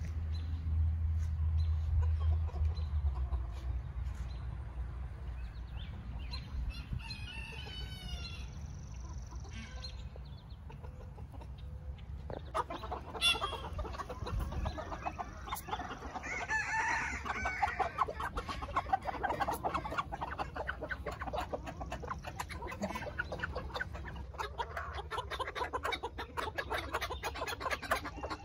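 Backyard chickens clucking and calling, with one longer call a little past the middle. A low rumble sounds in the first few seconds.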